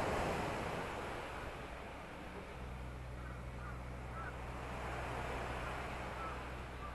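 Waves breaking on the beach below, heard from the clifftop deck as a steady wash of surf that swells at the start and again near the middle. A few short bird calls sound through it, and a steady low hum comes in about two and a half seconds in.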